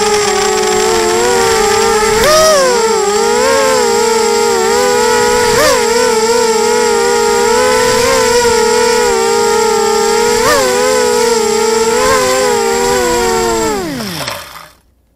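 Wasp 280 FPV quadcopter's electric motors and propellers whining steadily, heard close from its onboard camera, with brief throttle blips a couple of seconds in, at about five and a half seconds and at about ten and a half seconds. Near the end the whine falls steeply in pitch and stops as the motors spin down at the end of the flight.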